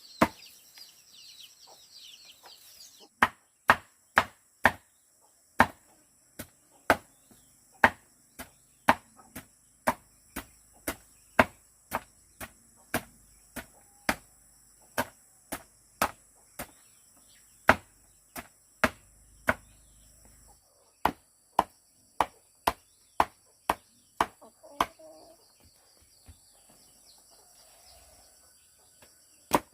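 A blade chopping in a steady rhythm, about two strokes a second, starting about three seconds in and stopping a few seconds before the end.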